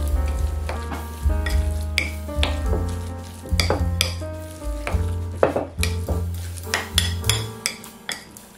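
A metal spoon stirring raw ground meat in a ceramic bowl, with wet squelching and repeated clicks of the spoon against the bowl, over background music with a steady bass line.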